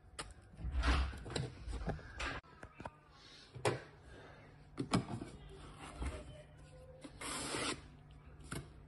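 Handling noises inside an opened lithium battery case: scattered light taps and knocks of a screwdriver and plastic parts. About seven seconds in there is a half-second scraping rustle as a padding sheet is lifted off the BMS board.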